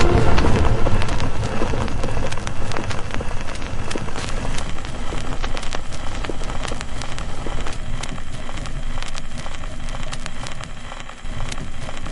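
Designed space sound effect of a sun or star: a dense crackle of many small clicks over a hissing haze and low rumble, like fire or rain. It slowly fades, dips near the end and then swells again.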